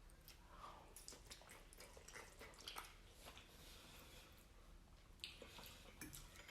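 Faint wet chewing of a mouthful of creamy chicken Alfredo spaghetti, with scattered small clicks.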